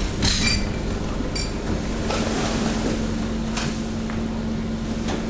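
Hydraulic waste compactor running with a steady mechanical drone. There is brief crackling and clinking of waste near the start, and a steady hum from the hydraulic system comes in about two seconds in.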